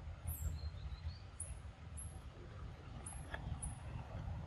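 Outdoor forest ambience: short, very high-pitched chirps falling slightly in pitch, repeating about once a second over a steady low rumble, with a single sharp click about three seconds in.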